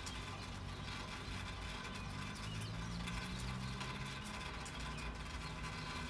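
Street ambience: a car engine running with a low hum that rises a little in pitch midway, under gentle rain, with birds chirping.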